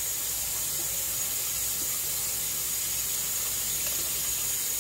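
Kitchen faucet running a steady stream of water onto a bowl in a stainless steel sink: an even hiss.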